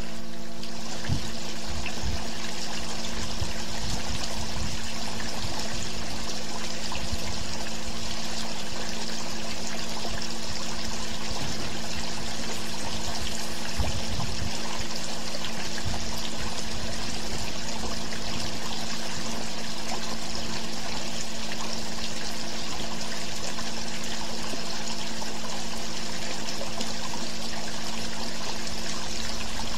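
A steady rushing, water-like noise with a constant low hum beneath it, unchanging throughout.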